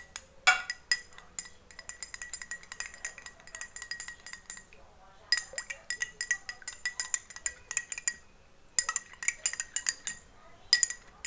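A spoon stirring briskly in a glass of warm lemon water with honey, clinking quickly against the glass so that it rings. The clinking comes in several spells with short breaks between.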